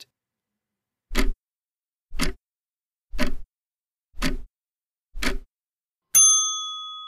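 Countdown timer sound effect: five clock ticks, one a second, then a single bell-like ding that rings on and fades, marking that time is up.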